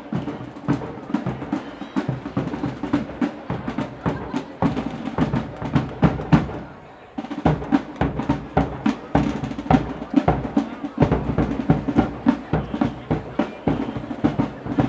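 Parade drummers beating a fast, dense rhythm on snare and bass drums, with a short break about seven seconds in before the drumming picks up again.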